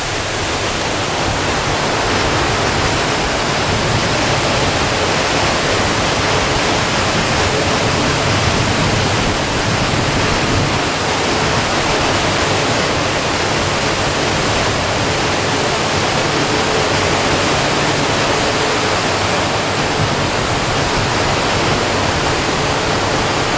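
Steady rushing noise of wind and water on the open deck of a cruise ship underway, with a faint steady hum underneath.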